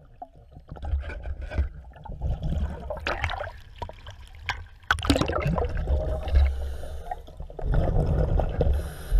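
Water sloshing and gurgling around an underwater camera as it moves near the surface beside a sailboat hull in choppy water. Irregular knocks and splashes come and go.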